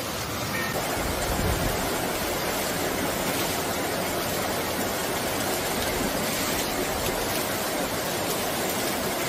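Floodwater rushing in a torrent down a street, a loud, steady wash of water noise that sets in about a second in.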